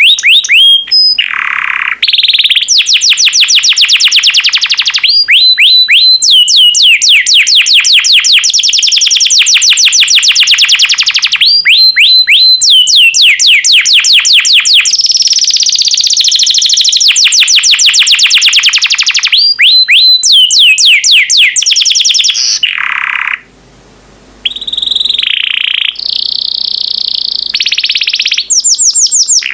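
Yellow domestic canary singing loudly: long runs of rapid trills, each a fast string of quickly repeated high notes, the pattern changing every few seconds, with one short break a few seconds before the end.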